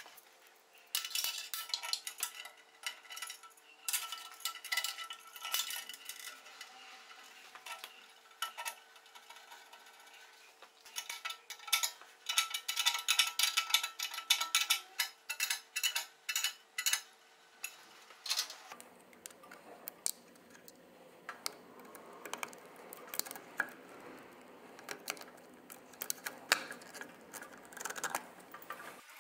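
Metal clinking and clattering: many short taps of tools and metal parts being handled. About two-thirds of the way through, the clatter gives way to a steadier noise with only occasional clicks.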